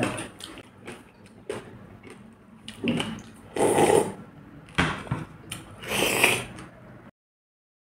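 Close-up mouth sounds of pani puri eating: small wet smacks and clicks, then loud slurping of pani from a bowl about three and a half seconds in, and again about six seconds in. The sound cuts off abruptly about seven seconds in.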